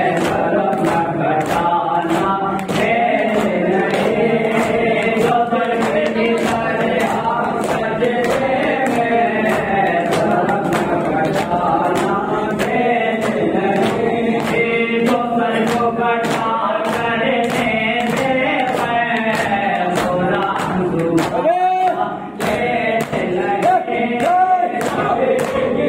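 A group of men chanting a noha in chorus, with a steady beat of sharp hand strikes of matam, ritual chest-beating, keeping time. The singing breaks off briefly near the end, then resumes.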